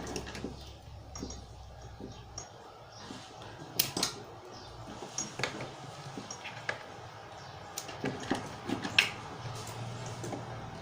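Scattered small clicks and light metallic clinks of hand tools cutting and handling a wire for a joint, the sharpest about four and nine seconds in. A low hum runs under the first couple of seconds.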